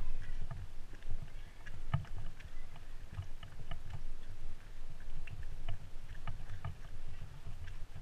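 Footsteps on a wooden boardwalk, heard as irregular low thuds, with rumbling handling noise from a handheld camera carried while walking and scattered light clicks.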